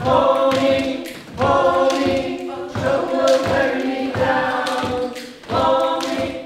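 A group of young voices singing a folk song together, with body percussion: hands patting on chests in a steady rhythm under the singing.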